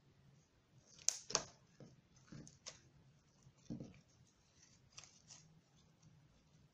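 Homemade slime being squeezed and worked by hand, making a string of short clicks and pops; the loudest two come close together about a second in, with softer ones scattered after.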